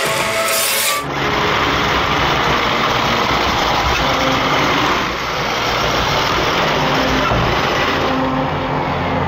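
iRobot Roomba robotic vacuums running: a loud, steady motor and brush noise with rubbing and scraping, starting sharply about a second in.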